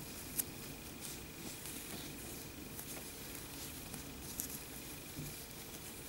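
Faint rustling of yarn and light clicks of a metal crochet hook as double crochet stitches are worked, with a couple of sharper clicks.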